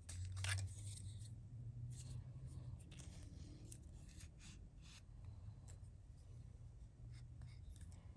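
Fingers unscrewing the cap of a Waterman 52V fountain pen from its threaded barrel: faint rubbing and scattered small clicks, the plainest about half a second in, over a low steady hum.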